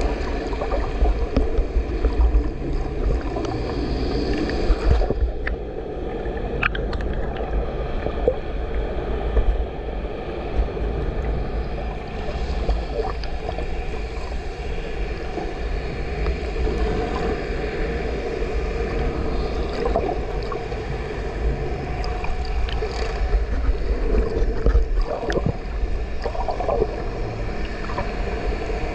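Muffled underwater noise picked up by a camera held just below the surface: a constant low rumble with water sloshing and gurgling, and a few light clicks scattered through it.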